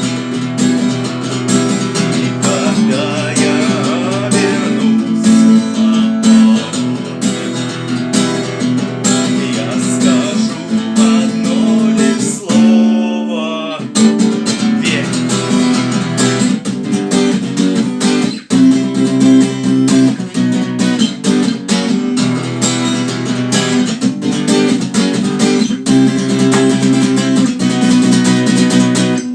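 Acoustic guitar music, strummed and plucked, with a brief break about twelve seconds in.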